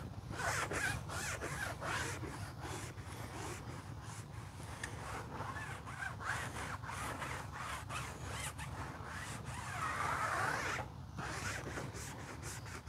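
Foam applicator pad rubbing tire dressing onto a rubber tire sidewall in repeated short back-and-forth strokes, a scratchy swishing with a longer continuous rub near the end.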